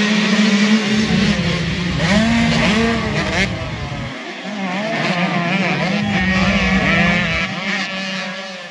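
Motocross dirt bike engines revving hard, the pitch rising and falling with the throttle. The sound comes in two loud swells with a dip about four seconds in.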